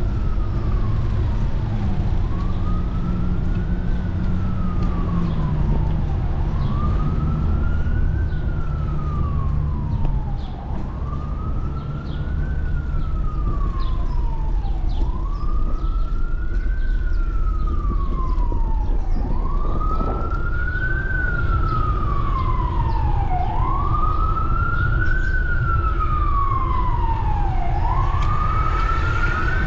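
Emergency vehicle siren in a slow wail, its pitch rising and falling about every four seconds and growing louder over the last third.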